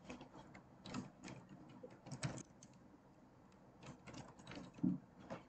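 Typing on a computer keyboard: an irregular run of faint key clicks, the loudest about five seconds in.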